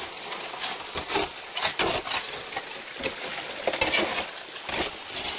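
Stream water running through a gold sluice box, with irregular clattering and knocking of gravel and stones.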